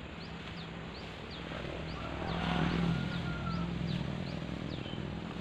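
Birds chirping, repeated short falling notes, over steady outdoor noise, with a low hum that swells and fades around the middle.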